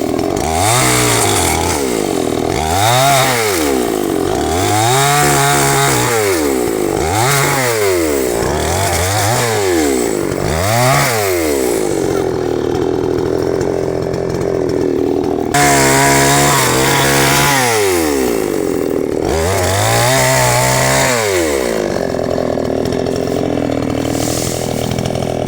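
Two-stroke chainsaw engine revving up and down over and over, about once every two seconds, as it works through branches. Near the end it holds a steadier pitch.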